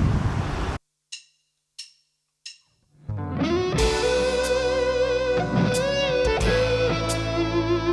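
Outdoor background noise cuts off abruptly, then three short, evenly spaced clicks count in. About three seconds in, a rock band starts: lead electric guitar playing a melody with bent notes over bass and drums.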